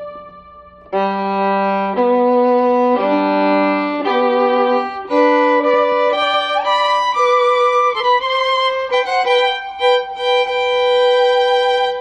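Instrumental background music: a slow melody of long held notes that comes in about a second in after a brief dip, moves to quicker notes with an upward slide midway, and settles on a long held note.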